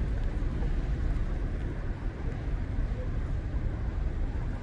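City street ambience: a steady rumble of road traffic with passers-by talking.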